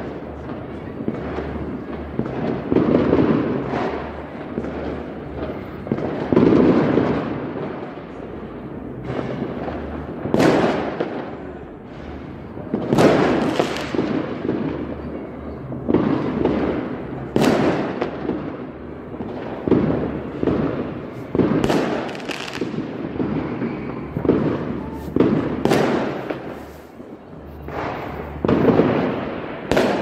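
Large aerial fireworks exploding over a city at a distance: a continuous run of overlapping deep booms, roughly one every two to three seconds, each trailing off in an echoing tail, with some sharper cracks among them.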